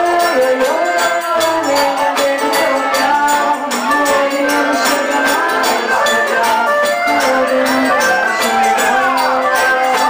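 Live forró band playing: accordion and acoustic guitar over zabumba drum and hand percussion, with a steady, even beat.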